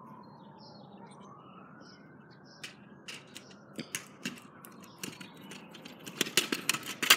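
Kick scooter rolling over a concrete walkway and sidewalk, its wheels clacking over the joints in a string of sharp clicks that grow louder and come faster over the last second or so as it approaches.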